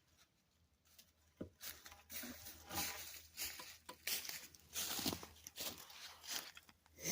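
Irregular rustling and scuffing from about a second and a half in: handling noise as the camera is taken over and moved about.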